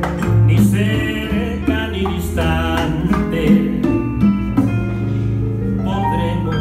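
Live bolero played on electric keyboard and guitar, with a melody line carried above the chords and bass.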